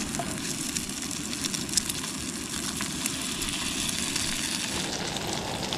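Potato slices sizzling in butter in a pan over a canister backpacking stove, with the burner's steady hiss underneath and a few faint clicks.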